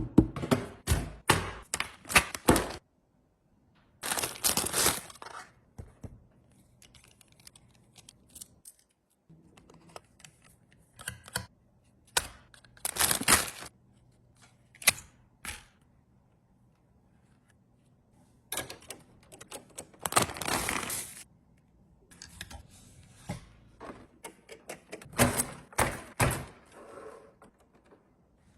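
A toy car being unboxed and handled: bursts of clicks and knocks mixed with rustling of packaging, in clusters separated by short lulls.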